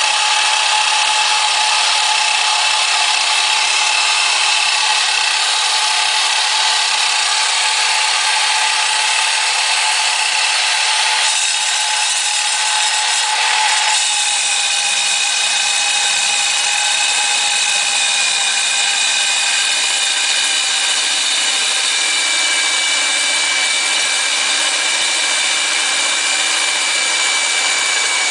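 Kor-It K804 electric core drill, a 1500 W hand-held machine, running steadily with a high whine over a rushing noise. About halfway through the whine shifts and then sinks slightly in pitch.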